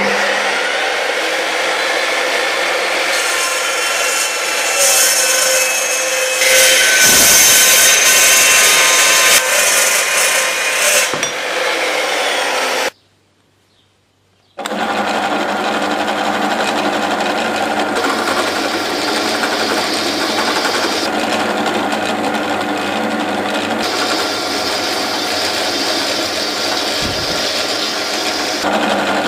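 A Makita metal-cutting chop saw running and cutting through steel, with a harsh, high cutting sound that is loudest in the middle of the cut. It breaks off suddenly about halfway through. A second or so later a drill press runs steadily, its twist bit drilling through steel flat bar.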